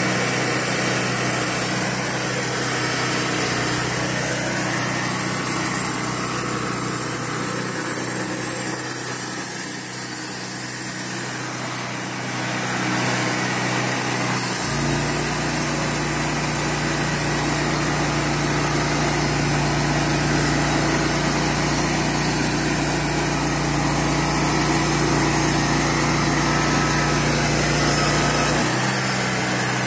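Wood-Mizer portable band sawmill running, its gasoline engine at steady speed while the band blade saws through a cedar cant. About halfway through the sound turns abruptly to a deeper hum, and it switches back just before the end.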